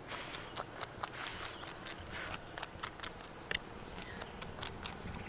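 Irregular small crisp clicks and crackles as fingers pick at a wax honeycomb, with one sharper click about three and a half seconds in.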